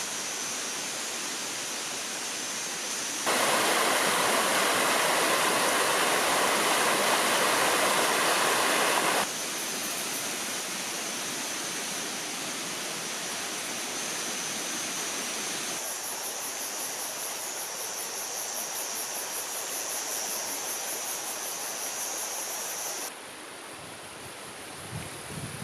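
Forest stream flowing and splashing, a steady rush of water. It is abruptly louder for about six seconds, starting about three seconds in, and quieter near the end.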